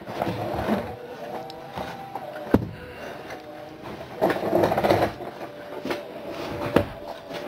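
Homemade wooden engine hoist on wheelbarrow wheels being pushed and rolled over wooden boards, with scraping and rattling of wood, and two sharp knocks, one about two and a half seconds in and one near the end.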